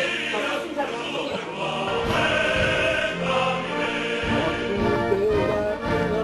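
Background music with choral voices singing sustained notes over an accompaniment.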